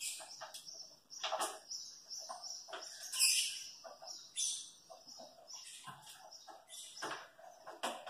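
A Congo African grey parrot making scattered short, soft clicks and chirps as it clambers about a wooden shelf, with a brief hissing rustle about three seconds in.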